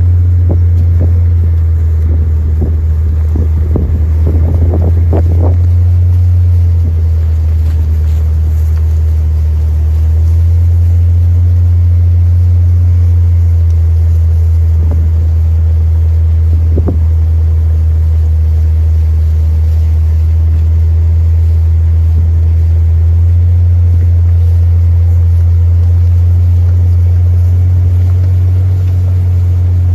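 Vehicle engine idling steadily, a loud low hum.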